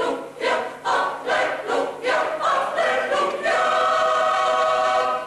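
Mixed choir singing in short rhythmic phrases, then holding a long final chord that cuts off near the end.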